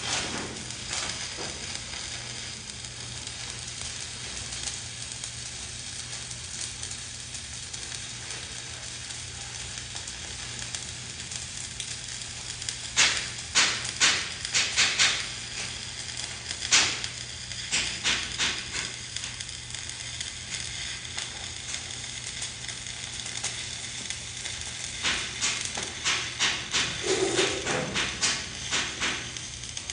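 Electric arc welding a vertical uphill bead: the arc gives a steady hiss, breaking into clusters of loud crackling and popping about halfway through and again near the end.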